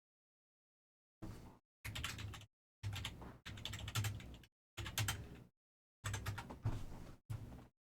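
Computer keyboard typing in a series of short bursts, each well under a second, with dead silence between them.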